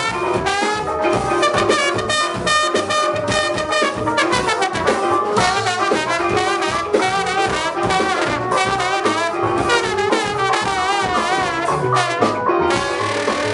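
Instrumental ensemble music: several sustained, horn-like notes played together, their pitches wavering.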